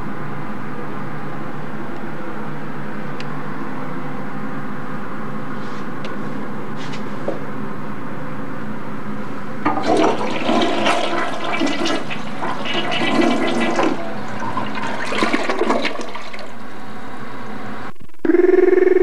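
A toilet flushing, water rushing through the bowl for about six seconds, after a stretch of steady low hum. Near the end a short, loud buzzing tone sounds as the picture breaks into static.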